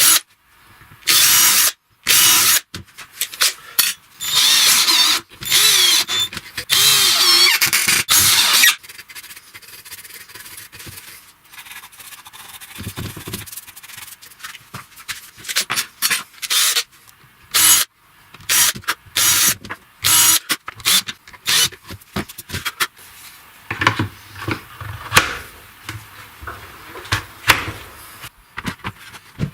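Power drill running in short bursts of a second or two, starting and stopping repeatedly, followed by a longer quieter stretch of small clicks and knocks from handling parts.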